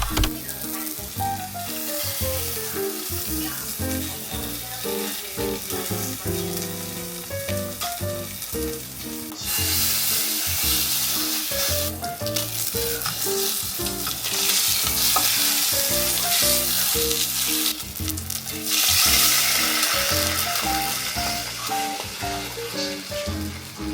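Food sizzling as it fries in a pan, the sizzle swelling louder several times, over light background music.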